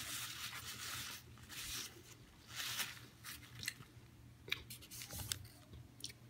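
Close-up chewing and biting of a burger: irregular short bursts of mouth noise, with a few sharper clicks past the middle.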